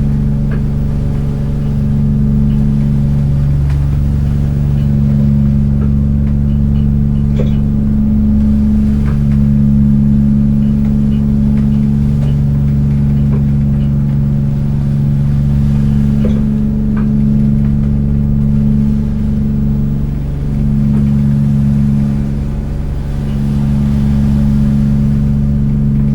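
Fishing boat's inboard engine idling steadily while moored, a low even drone with faint occasional ticks.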